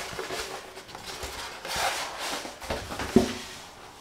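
Rustling and handling noises from a cardboard box and its packaging as a large speaker is worked out of it, with a dull knock about three seconds in.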